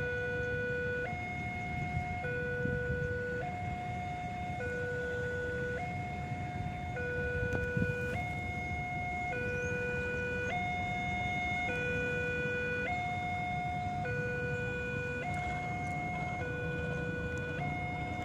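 Two-tone electronic warning signal sounding as a train approaches, switching between a low and a high note about once a second, over a low rumble.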